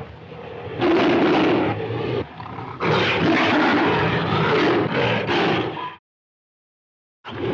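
Tiger roaring, from a Bornean tiger sound-effects track: one roar about a second in, a longer roar of about three seconds from about three seconds in, then a sudden cut to silence before a new roar starts at the very end.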